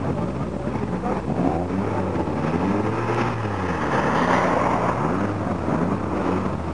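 Renault Clio 16S car engine being revved in repeated blips, its pitch rising and falling, with a louder surge of engine noise about four seconds in.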